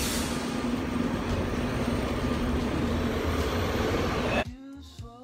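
Steady, loud rumble of a moving vehicle. About four seconds in it cuts off abruptly and music with singing begins.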